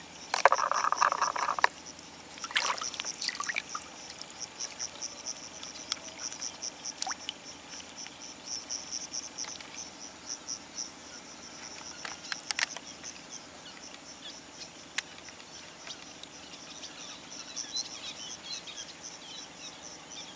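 Crickets or other insects chirping steadily: a constant high buzz with a rapid pulsing chirp under it. A short, loud rustling burst comes about half a second in, and a few faint clicks follow later.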